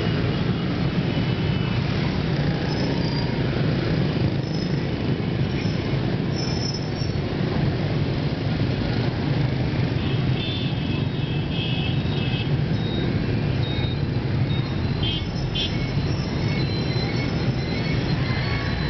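Dense stream of scooters and motorbikes passing at close range: a steady, loud mix of small engines and tyre noise. Short high-pitched beeps cut in now and then, mostly in the second half.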